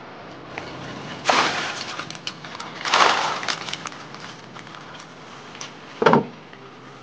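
Cooked bamboo shoots tipped into a stone basin of water, splashing twice, with small drips after. Near the end a wooden board lid thuds down once onto the basin.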